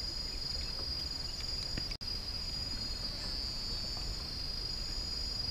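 Insects chirring in a steady high-pitched chorus, with a second, higher trill coming and going in short spells over it. The sound cuts out for an instant about two seconds in.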